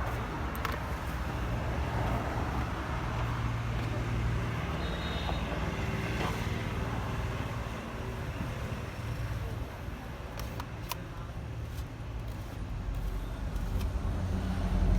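Low, steady rumble of a motor vehicle engine running, swelling louder twice, with a few sharp clicks.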